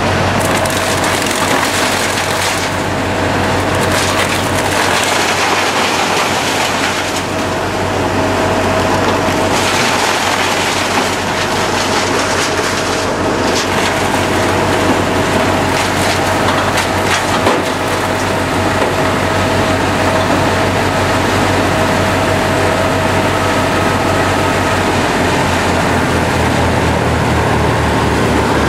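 1995 Brush Bandit Model 250 wood chipper running at speed, a steady whine over the engine's rumble, with irregular knocks and cracks throughout.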